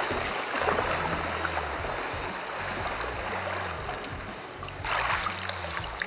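Swimming-pool water sloshing and splashing as someone moves through it, with a louder splash about five seconds in.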